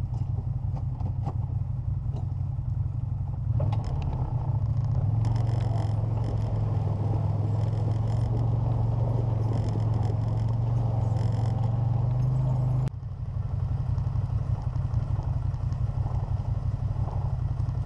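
CF Moto ZForce 800 side-by-side's V-twin engine running close up as the machine drives over rough snowy ground, with occasional rattles of the body. About two-thirds of the way through the sound cuts abruptly to the engine running more steadily with the machine stopped.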